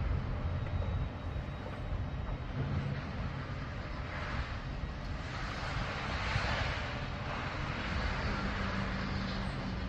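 Distant engine noise: a steady low hum, with a swell of rushing noise through the middle that lasts a few seconds.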